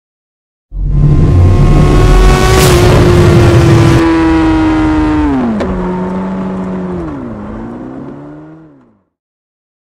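Motorcycle engine sound for an intro: a loud, high-revving engine note with a rushing noise, holding steady for a few seconds, then dropping in pitch in two steps as it winds down and fades out.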